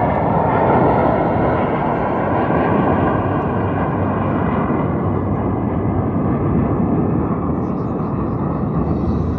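Engine noise from two jets flying past in formation, a steady, loud sound with a faint whine on top, easing slightly near the end.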